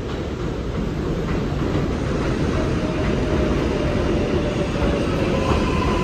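New York City Subway 4 train pulling into an elevated station, its running noise growing steadily louder as it nears. A faint whine comes in about halfway, and a higher steady tone joins near the end.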